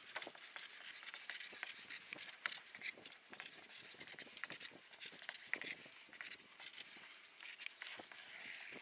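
Felt-tip marker scratching on cardboard, faint, in many short irregular strokes as numbers are written.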